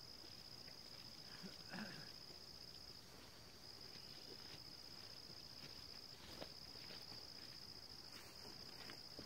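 Faint, steady high-pitched chorus of calling insects, dipping briefly about three seconds in, with a few faint ticks over it.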